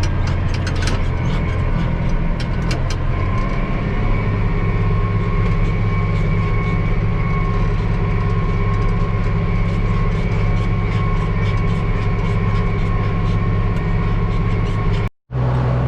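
Large diesel tractor engine running steadily under load while pulling a disk through the field, heard from the cab, with light rattles and clicks over it. The engine note shifts about three and a half seconds in.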